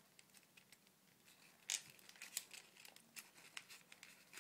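A sheet of paper rustling and crinkling faintly as it is folded and tucked by hand, in a run of small crackles with a sharper crinkle about a second and a half in.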